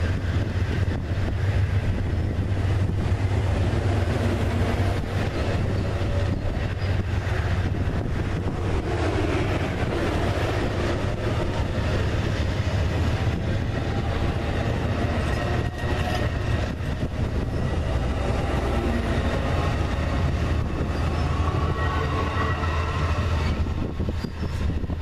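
Amtrak Superliner bilevel passenger cars rolling past at close range, a steady rumble of steel wheels on the rails with faint clickety-clack. It eases slightly near the end as the last car passes.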